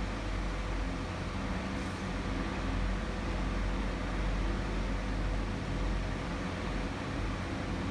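Steady, even rushing noise with a low rumble and a faint constant hum underneath, unchanging throughout.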